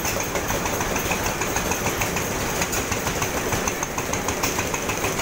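Vintage stationary engines and belt-driven machinery running together, a steady mechanical clatter of rapid, irregular knocks.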